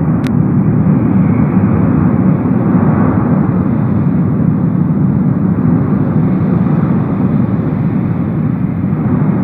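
Lava fountain at Cumbre Vieja's erupting vent, giving a loud, steady, deep rushing noise with no break. A single short click sounds just after the start.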